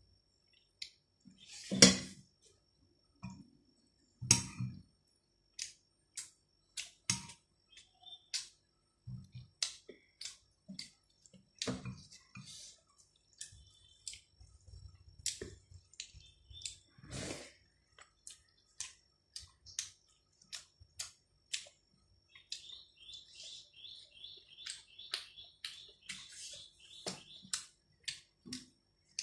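Close-up eating sounds: wet mouth clicks and smacks of chewing rice and chicken, with a louder smack about two seconds in. Near the end a small bird chirps rapidly and repeatedly in the background.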